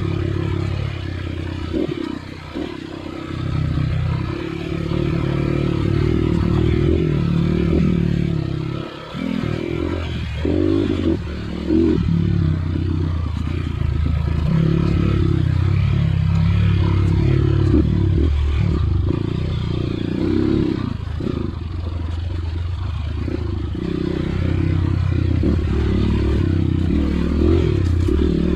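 Off-road dirt bike engine running and revving up and down over and over, dropping back briefly a couple of times, about two seconds in and again near nine seconds.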